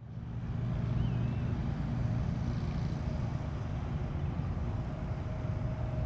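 Steady low rumble of a Boeing 747-8's jet engines, heard from the ground at a distance, with a faint steady tone above it. A short high chirp sounds about a second in.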